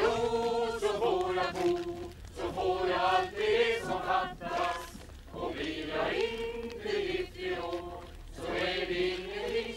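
A mixed group of men and women singing a folk-dance song together, voice only, in phrases with short pauses between them.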